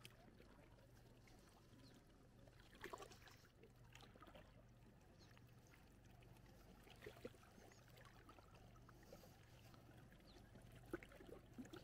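Near silence: a faint, steady low hum with a few soft, brief knocks and rustles.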